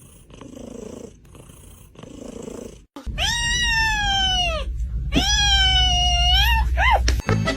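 A cat purring in slow pulses, about one a second. Then, about three seconds in, a cat meowing loudly: two long drawn-out meows and a short one. Music starts near the end.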